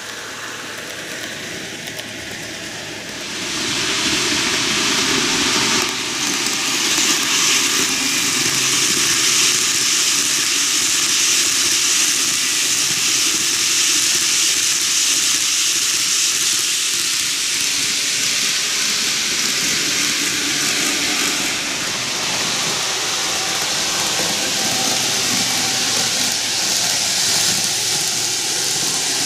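N-gauge model train, a 15-car TOMIX JR 185 series, running on TOMIX cant track: a steady hissing rattle of small wheels on the rails. It gets much louder about 3.5 s in as the train comes close past, then eases off a little after about 22 s as it runs away round the curve.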